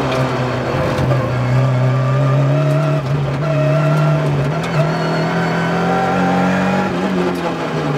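MINI John Cooper Works race car's turbocharged four-cylinder engine, heard from inside the cockpit, pulling hard as the car accelerates. Its pitch climbs slowly for about five seconds, holds, then dips briefly near the end.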